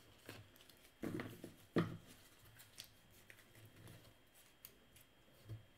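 A stack of baseball trading cards being handled: soft clicks and taps of card stock, the sharpest tap a little under two seconds in.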